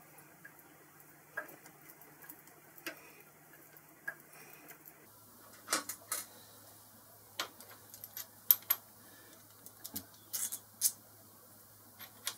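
Small steel workpieces handled on a bench vise: scattered light metallic clicks and clinks of steel parts knocking together and being set down, the sharpest about eight and a half seconds in.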